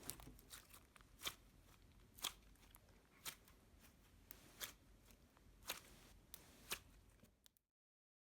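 Slime being pressed and poked by hand, giving faint crunchy clicks and pops about once a second over soft crackling; the sound cuts off abruptly shortly before the end.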